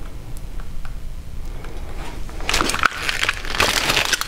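Aluminium foil being handled and crumpled: a few light clicks and rustles at first, then dense crinkling from about halfway through.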